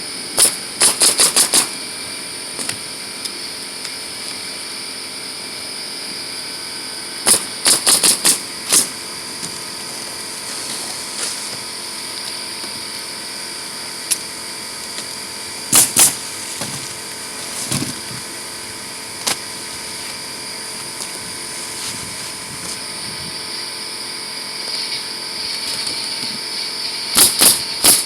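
Nails being driven into asphalt roof shingles: groups of four to six quick sharp strikes, a few seconds apart, with two single strikes in between, over a steady hiss.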